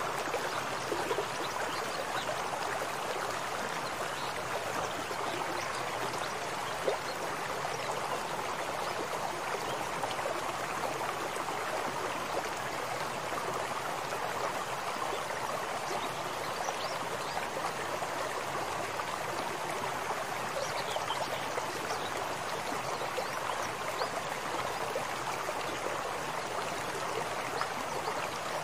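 Steady, even rush of water flowing in a shallow irrigation ditch.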